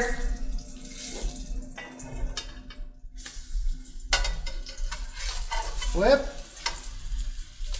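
Pancakes sizzling in butter in a metal frying pan, with a metal spatula scraping and clicking against the pan as it is worked under the pancakes to flip them.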